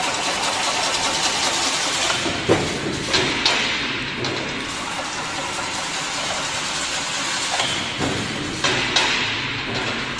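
Double-wire chain link fence weaving machine running with a steady mechanical clatter, punctuated by a few sharp metallic knocks a few seconds in and again near the end.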